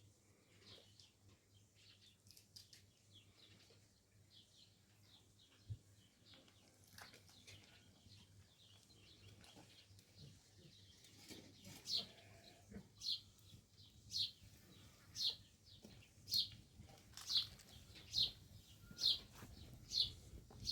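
A bird calling: a short, high, falling chirp repeated about once a second, faint at first and clearer in the second half.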